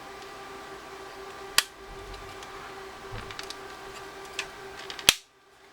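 Sharp clicks and light knocks of a screwdriver and small plastic and metal calculator parts being handled on a workbench, with a loud click about one and a half seconds in and the loudest about five seconds in, over a steady faint hum.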